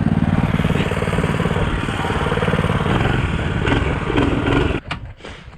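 Small mini bike engine running at a fairly steady pitch, cutting off abruptly about five seconds in.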